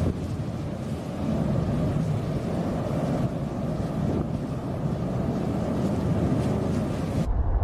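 Cumbre Vieja volcano's lava fountain erupting: a steady, noisy rumble with a few faint crackles, cutting off abruptly near the end.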